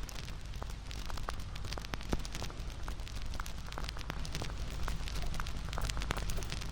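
Bonfire crackling: frequent irregular sharp pops and snaps over a steady low rush of burning wood.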